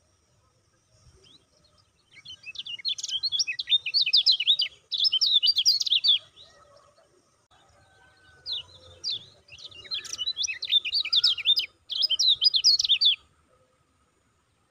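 Caged white-eye (kecial kuning) singing its rapid, high 'ciak ciak' twittering song in two bouts, each several seconds long with a short break in the middle.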